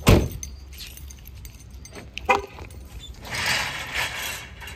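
A car door shuts with a heavy thud right at the start, then a smaller knock about two seconds in and a stretch of handling noise near the end.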